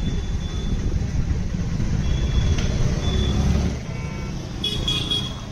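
Low rumble of passing road traffic, fading about four seconds in.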